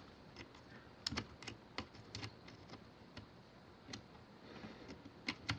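Faint, irregular small clicks and taps of a screw and small screwdriver against a pocket radio's plastic case while a screw is being fitted into a tight spot, a cluster of clicks after about a second and two sharper ones near the end.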